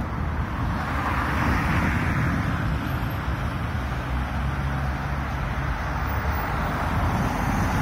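Road traffic running steadily on the adjacent road, with passing cars' tyre noise swelling about two seconds in and again near the end.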